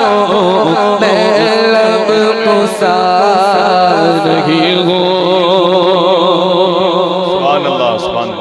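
A man singing a naat into a microphone: long held notes with wavering ornaments and no break, tapering off near the end.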